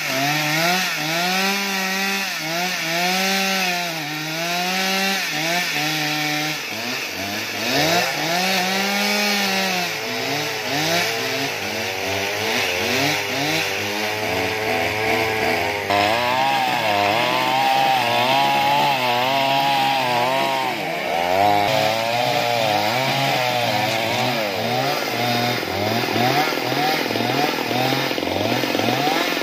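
Two-stroke chainsaw revving up and down repeatedly as it cuts into an old tamarind trunk. Near the end it drops to a lower, uneven run.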